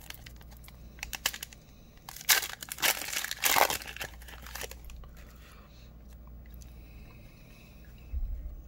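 Plastic wrapper of a trading-card pack crinkling and tearing as it is opened, loudest in a burst from about two to four seconds in, with lighter clicks and rustles of cards being handled around it.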